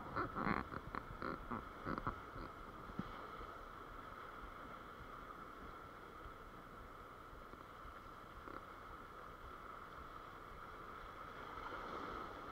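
Sea surf washing over shoreline rocks as a steady rush. In the first two seconds there are a few short clicks and knocks from the spinning reel being handled.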